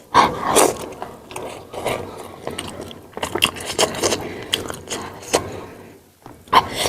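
Close-miked chewing and mouth sounds of someone eating momos: irregular wet clicks and smacks with short pauses.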